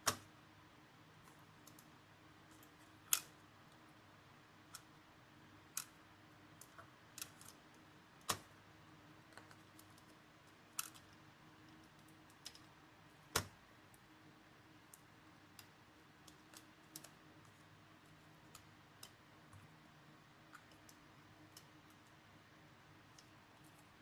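Scattered sharp clicks and light taps of small tools and parts being handled on a MacBook Pro during disassembly, a few louder clicks every few seconds among many faint ones, over a faint steady hum.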